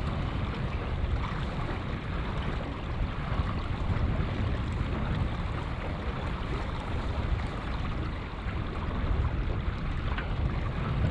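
Wind buffeting an action camera's microphone, mixed with water washing along the hull of a small sailboat under way. The rumble is steady but uneven, heaviest in the low end.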